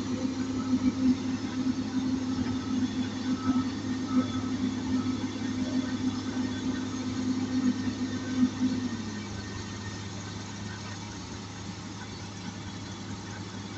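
Komatsu PC200 excavator's diesel engine running steadily with a low hum; about nine seconds in its pitch dips slightly and it gets quieter as it eases off.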